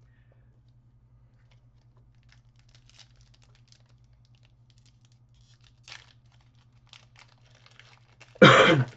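Trading cards being handled and shuffled: faint rustles and light clicks of card stock against card stock, over a steady low electrical hum. A brief louder sound comes near the end.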